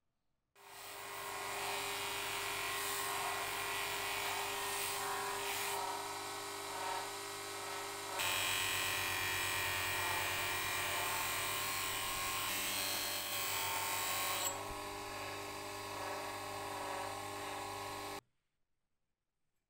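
Bench-mounted motor spinning a green abrasive wheel with a hatchet blade pressed against it, grinding off the surface: a steady motor whine with a grinding hiss. It starts about half a second in, changes abruptly about eight and again about fourteen seconds in, and cuts off suddenly near the end.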